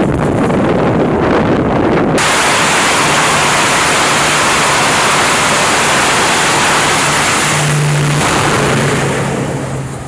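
Jet engine at full power on a carrier flight deck for a catapult launch: a loud, steady rushing roar that cuts in suddenly about two seconds in and eases off near the end. Before it, a heavy rumble with wind buffeting on the microphone as an E-2 Hawkeye flies off the deck.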